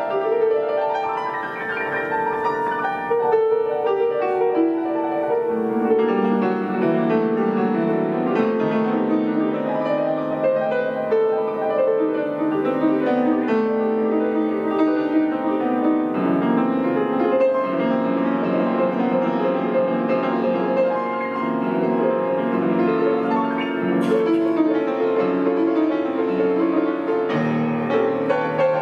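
Grand piano played solo, a continuous flowing piece with many notes moving through the middle register.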